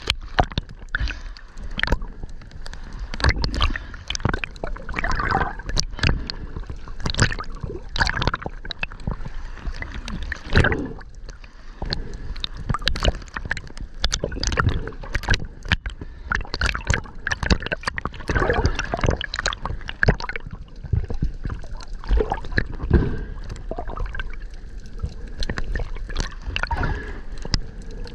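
Underwater sound heard through a camera housing: water moving and gurgling, broken by many irregular clicks and knocks.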